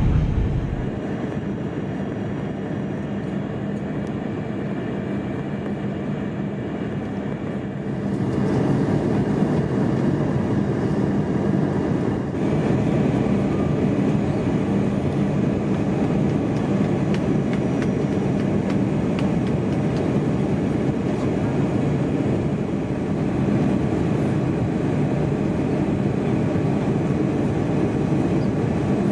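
Steady rumble and rush of air inside the cabin of an Airbus A321 jet airliner on approach, with a low hum under it. It grows louder about eight seconds in.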